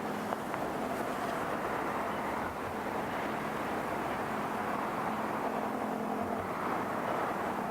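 Steady low engine hum under a constant rushing noise of strong wind.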